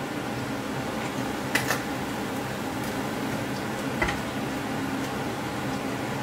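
Battered fish frying in shallow oil in a frying pan, a steady sizzle, with a metal spatula clicking against the pan twice about one and a half seconds in and once more near four seconds.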